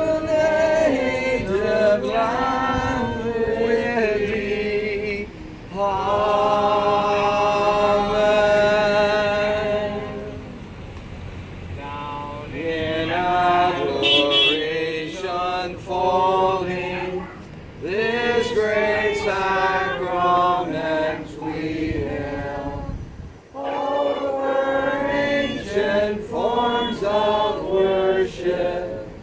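A small group of voices singing an unaccompanied liturgical chant or hymn, in phrases with some long held notes and brief breaks between them.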